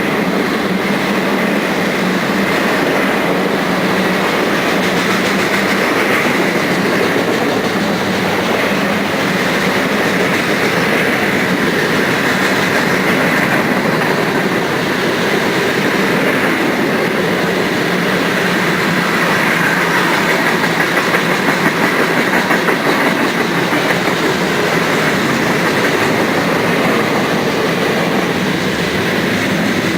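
Freight cars of a manifest freight train rolling past, steel wheels running and clattering over the rails in a steady loud rumble.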